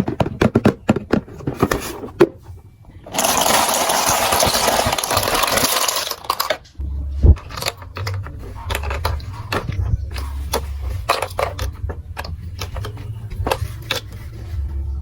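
Plastic marble run building pieces clicking and clattering, with a dense steady rattle for about three seconds starting about three seconds in, then scattered clicks over a low rumble.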